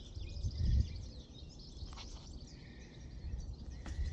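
Small birds chirping and twittering over a low, uneven wind rumble on the microphone, with a dull low bump under a second in.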